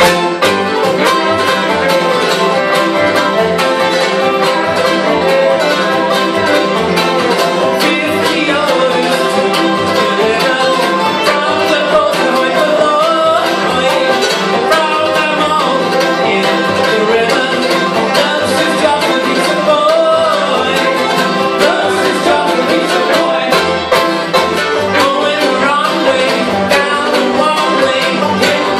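Bluegrass band playing live: banjo, mandolin, acoustic guitars, fiddle and upright bass, with a man singing lead.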